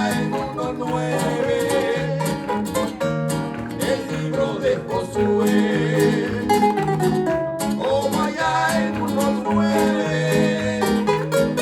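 Upbeat praise-song music: plucked strings over a bass that bounces steadily between two notes, with a wavering melody line above.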